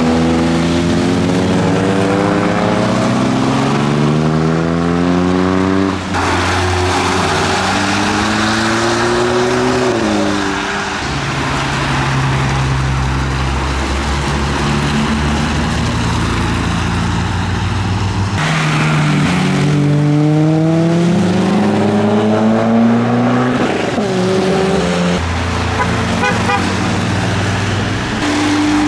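Modified cars accelerating away one after another, their engines revving up through the gears. The first note climbs for about six seconds, breaks at a gear change and climbs again. Another car revs up in the second half, over the hiss of tyres on wet tarmac.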